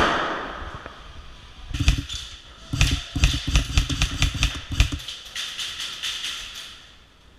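Airsoft gun firing in rapid bursts. A sharp crack at the start, a short burst about two seconds in, then a longer string of shots at about seven a second for some two seconds, with fainter clicks after.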